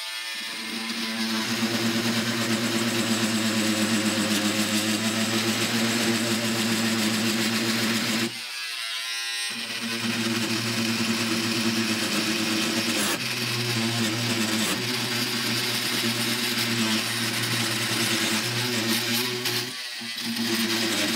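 Oscillating multi-tool running steadily as it saws into a knife's wooden handle at the pommel end. It stops for about a second around eight seconds in, then starts again, with a short dip near the end.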